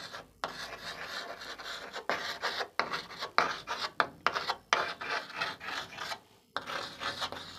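Chalk scraping across a chalkboard in a run of short strokes with brief pauses, as small looping curves are drawn.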